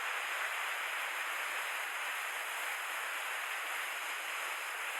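Steady rush of flowing, falling water in a mountain stream, an even hiss with no breaks.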